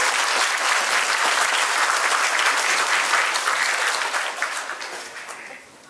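Congregation applauding, a dense steady clapping that dies away over the last second or two.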